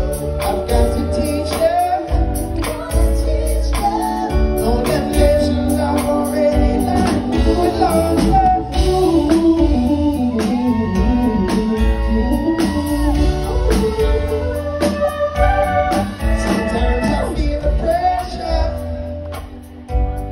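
Live reggae band playing with a heavy bass beat and acoustic guitar, with singing over it.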